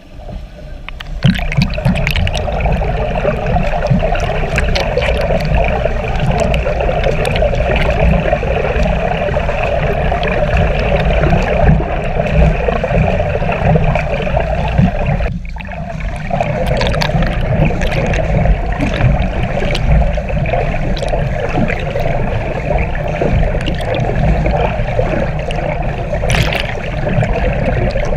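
Pool water churned and splashed by a swimmer doing front crawl: a continuous sloshing and gurgling, starting about a second in, with a brief drop about halfway.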